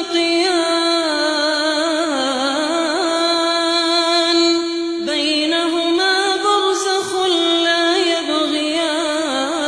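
Melodic Quran recitation: a single voice holding long, ornamented notes that waver in pitch, with short pauses for breath about five and seven seconds in.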